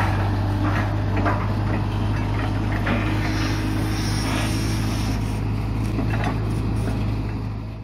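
Hitachi hydraulic excavator's diesel engine running steadily as the boom and bucket swing, with a few light knocks and rattles from the machine; the sound fades out at the very end.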